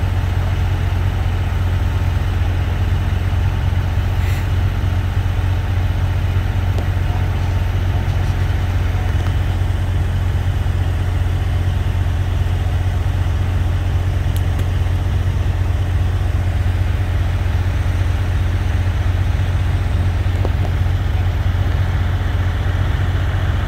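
Diesel engine of heavy construction equipment idling, a steady low hum that holds even throughout.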